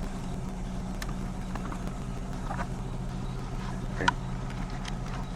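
GMC Yukon Denali engine idling with a steady low hum, left running to recharge a battery that had just been jump-started. A sharp click sounds about four seconds in.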